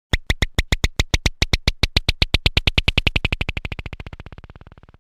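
Synthesized comedy sound effect: a run of sharp electronic clicks that starts at about six or seven a second, speeds up and fades away.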